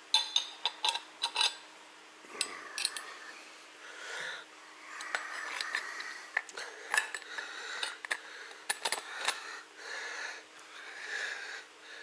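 Small metal parts being handled and fitted: steel spacers and a bolt clinking against a small wheel hub with a chain sprocket. Many sharp clicks, with scraping between them.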